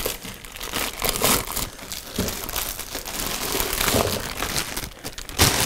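Clear plastic wrap crinkling and crackling as it is pulled off a stand mixer's head, with a louder crackle near the end.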